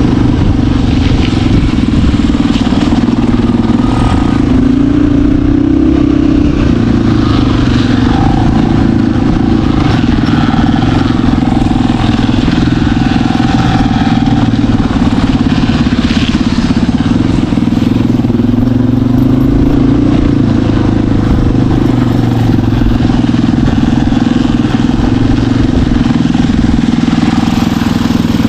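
Off-road vehicle engine running steadily and loudly, holding a fairly even pitch throughout.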